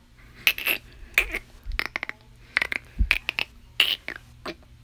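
A quick, irregular run of sharp clicks in little clusters, given as a plush dolphin's chattering reply in place of words.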